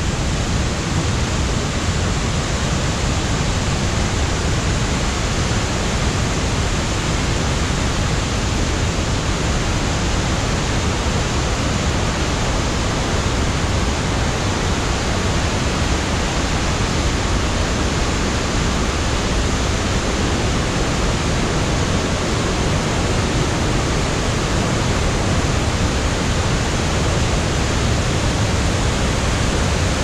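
Mae Klang Waterfall pouring down in heavy flow: a loud, steady rushing of falling water.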